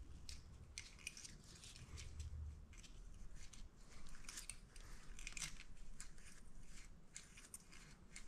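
Faint, irregular light metallic clicks and scrapes of a feeler gauge's thin steel blades being handled and slid between the cam and valve bucket, checking the intake valve clearance on an Aprilia Tuono V4's front cylinder.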